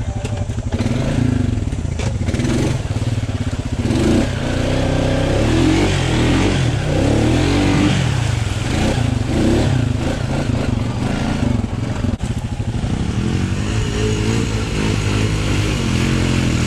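ATV engine revving up and down over and over as its tyres spin and churn through thick mud, working the mud hole back into soup.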